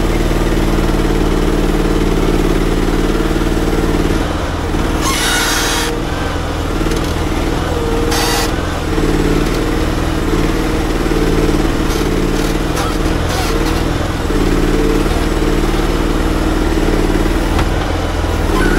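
Small petrol engine of a stand-on mini loader running steadily on held throttle while the machine drives with a full bucket of sand. The engine note shifts about four seconds in, and two short hissing bursts come about five and eight seconds in.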